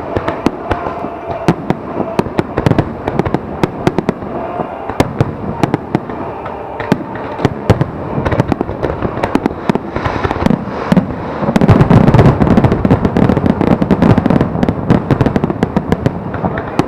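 Aerial fireworks display: a dense crackle of sharp pops throughout, with a louder stretch of heavy booming bursts from about twelve seconds in.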